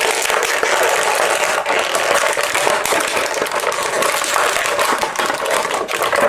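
Crowd applauding and cheering at an even level, cutting off abruptly at the end.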